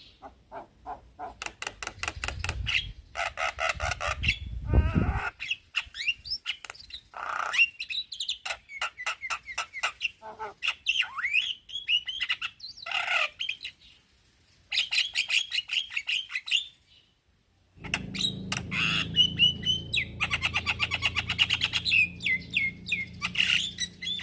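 Male Javan myna singing: rapid chattering rattles mixed with sliding whistled notes and harsh squawks, breaking off briefly twice in the second half.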